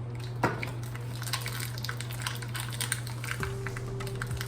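Frozen sausages crackling in an oiled skillet, a quick run of small pops and spits, with one sharper click about half a second in. A steady low hum runs underneath.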